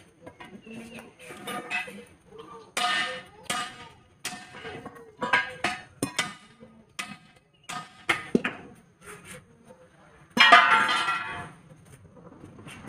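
Steel tyre iron knocking and scraping against steel truck wheel rims, in a run of separate metallic clanks and taps. Between them come chicken calls, the loudest about ten seconds in.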